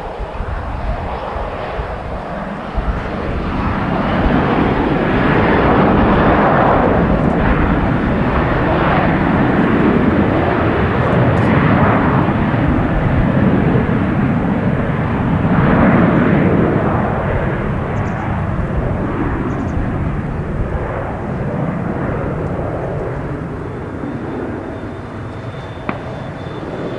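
Boeing 737-800's CFM56-7B turbofan engines at takeoff power: a loud jet roar that swells about four seconds in and then slowly fades as the jet rolls away down the runway, with a faint high whine near the end.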